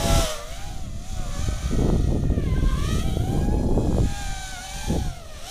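Acro quadcopter's motors and propellers whining, the pitch wavering up and down as the throttle changes during manoeuvres, over a low rumble of wind on the microphone.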